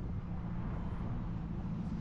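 A vehicle running with a steady low engine hum.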